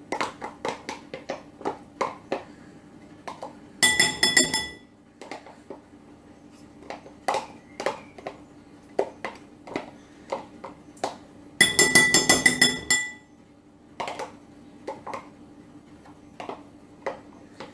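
Spoon scraping and clinking against a mixing bowl as softened butter is spooned in. Two bursts of rapid tapping, about four and twelve seconds in, set the bowl ringing.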